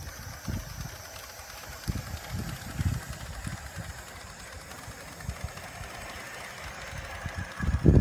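Live steam model locomotive running on the track, a faint steady hiss, under irregular low rumbling that grows loudest just before the end.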